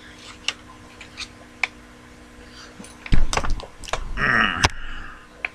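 Light, sharp clicks of small hard objects being handled, a few of them spaced apart, then a louder cluster of knocks and clatter with a brief squeak about three to four and a half seconds in.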